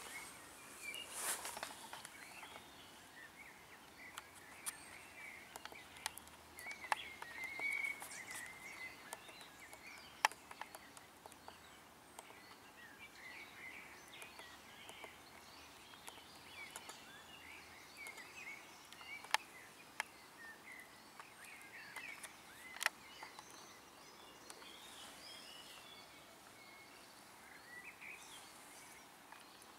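Faint forest ambience of small birds chirping and twittering in the background, with a brief rustle about a second in and a few sharp clicks scattered through.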